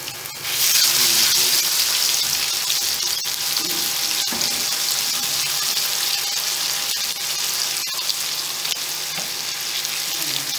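Garlic paste frying in hot cooking oil, sizzling steadily while it is stirred with a silicone spatula; the sizzle grows louder about half a second in.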